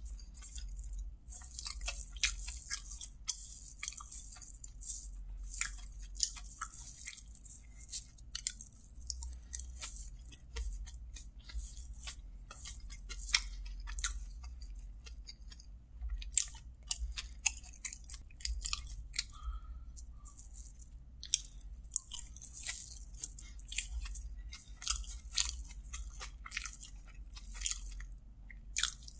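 Close-miked chewing of kottu roti: wet mouth clicks and smacks with soft crunches, among scattered crackles as fingers scoop the food off its paper wrapper.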